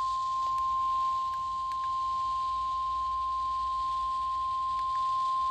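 NOAA Weather Radio 1050 Hz warning alarm tone, one steady pure tone held without a break over faint radio hiss, sent as the station's weekly test of its alert system.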